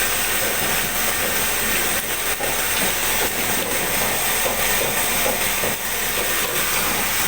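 Crystal ice machines running: a steady, loud mechanical noise with faint irregular clicking and rattling through it.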